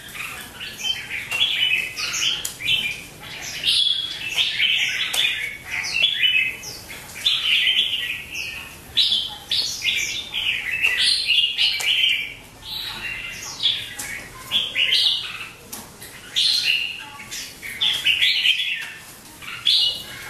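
Caged red-whiskered bulbuls singing in a competitive song bout, known in Vietnamese as chiến hót. Short, bright, chirpy phrases follow one after another with hardly a pause.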